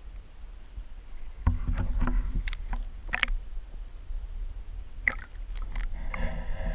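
Underwater audio from a camera moving through shallow lake water: a low rumble of water against the camera with sharp clicks and knocks, with a muffled hum near the end.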